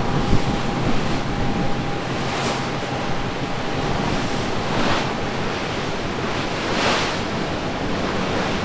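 Wind buffeting the microphone on the open deck of a ferry under way, over the rush of sea water along the hull. The rush swells briefly a few times, and a faint steady tone fades out about halfway.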